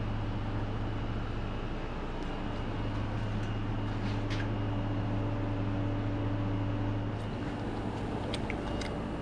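Steady low hum of running shop machinery, with a few faint metallic clicks of hand tools on the engine as the oil pump is taken off. The hum's higher tone drops away after about seven seconds.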